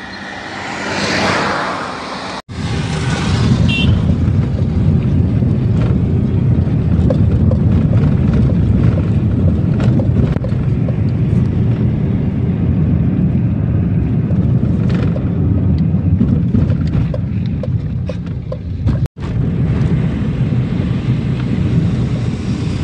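Steady low rumble of a vehicle driving along a road. Before it, a hiss swells and fades during the first two seconds, and the sound drops out for an instant twice.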